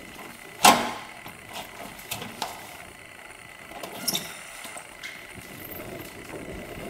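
Police patrol car door shutting with a sharp bang about half a second in. A few lighter clicks and knocks follow as the car's rear door is opened.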